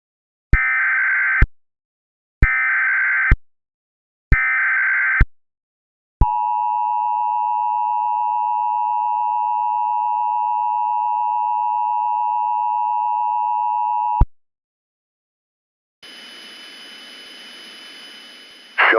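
Emergency Alert System activation: three short bursts of SAME header data, a screechy digital warble, each under a second long, then the steady two-tone EAS attention signal held for about eight seconds and cut off. These signal the start of an emergency warning broadcast. A few seconds later a steady hiss comes in near the end.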